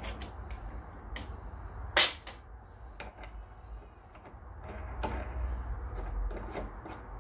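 Black iron pipe fittings being handled by hand: a few light metallic clicks and one sharp clink about two seconds in, as a half-inch tee is set onto a pipe nipple clamped in a drill-press vise, over a low steady hum.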